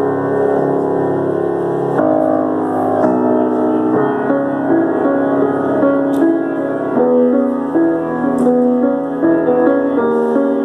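Solo piano playing a slow passage of held chords that change every second or so.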